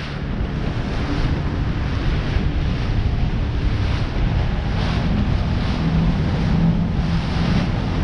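Wind buffeting the microphone over the rush of water in a motorboat's wake, with the steady hum of an Evinrude outboard motor underneath as the boat runs.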